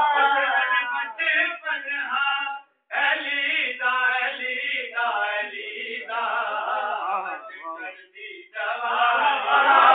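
Men's voices chanting devotional verses together without instruments, in long phrases with a brief break about three seconds in.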